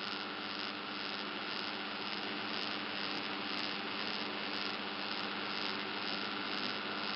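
Electric arc welding: a steady hiss from the arc, with a steady low hum under it.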